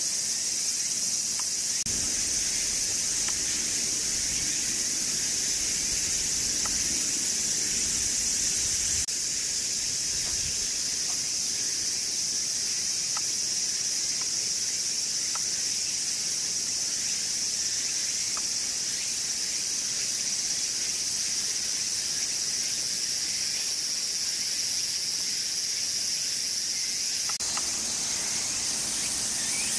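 A steady, high-pitched chorus of insects, going on without a break.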